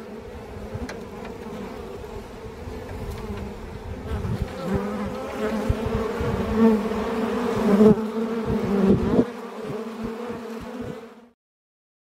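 Honeybees buzzing: a steady hive hum that grows louder from about four seconds in, with a few low thumps on the microphone, stopping about a second before the end.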